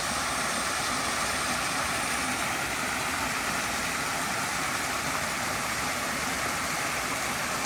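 Steady rush of running water from a mountain stream, an even unbroken hiss.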